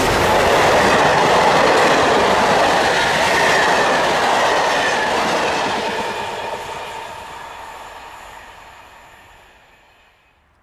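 A train of passenger coaches rolling past close by, its wheels running over the rails, then fading away over the last five seconds as the train recedes.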